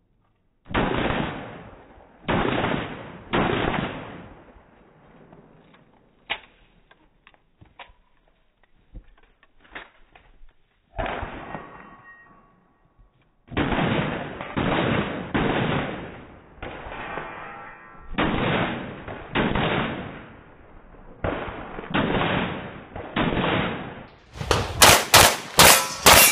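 Handgun gunfire on a practical shooting stage: single shots and pairs with pauses between, each followed by a ringing echo. A quieter stretch in the first half holds only faint clicks, and a fast string of shots comes near the end.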